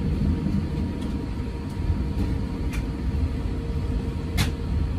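Steady low rumble of cabin noise inside an Airbus A350 airliner, with a faint steady hum. Two brief sharp clicks come through it, the louder one near the end.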